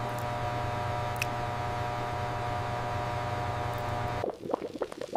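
Steady machine hum with several held tones over a low drone, which cuts off suddenly about four seconds in. Thick sludge bubbling and plopping irregularly follows it.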